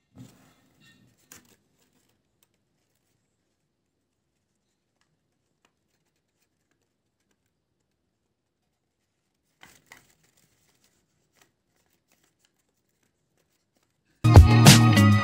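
Near silence broken by a few faint paper rustles and clicks as a hand works a folded paper dragon puppet: two near the start and a pair about ten seconds in. Loud music with a beat comes in near the end.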